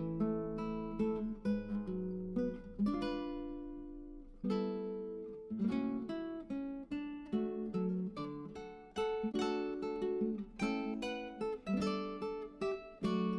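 Background music of acoustic guitar: plucked notes and strummed chords, each ringing out and fading before the next.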